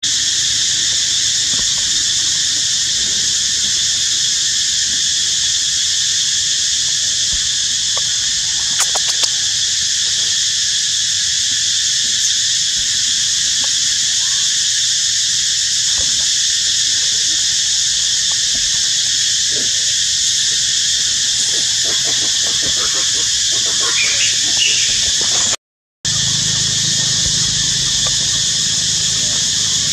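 Loud, steady drone of forest insects, several high pitches held without a break.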